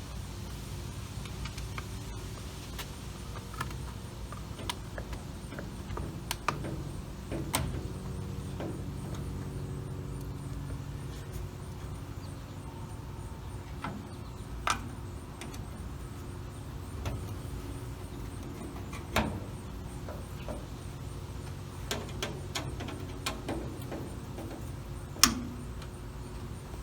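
Scattered clicks and knocks of hand work fitting a wing mirror to a car door, over a steady low hum; the sharpest knock comes near the end.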